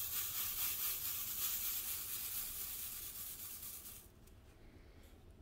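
Tray of square acrylic diamond-painting drills being shaken to settle them into grooved rows: a rapid, hissy rattle of many small plastic pieces that stops abruptly about four seconds in.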